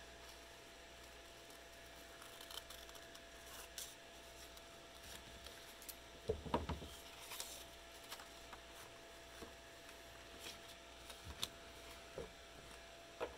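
Faint rustling and crinkling of brown construction paper being handled, unfolded and pressed flat, with scattered light clicks. The loudest rustle comes about halfway through, over a faint steady hum.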